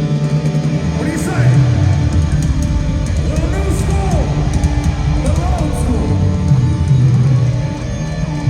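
Live hard rock band playing loud through an arena sound system, with heavy distorted electric guitar and drums.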